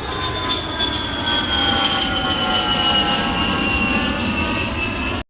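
A loud rushing engine noise with a high whine that slowly falls in pitch, cut off suddenly near the end.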